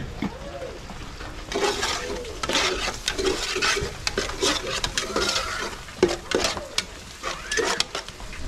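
Spoon stirring and scraping in a cooking pot, with repeated quick clinks against the metal.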